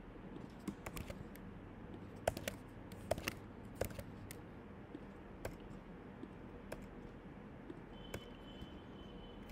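Computer keyboard keys clicking in scattered, irregular taps over a low background hiss.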